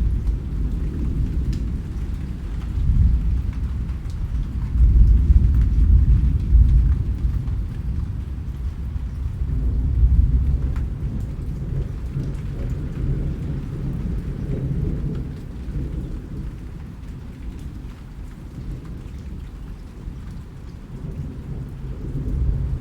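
Rain with low rolling thunder. The rumble swells loudest about five to seven seconds in and again around ten, dies down, then builds again near the end, with faint patter of raindrops above it.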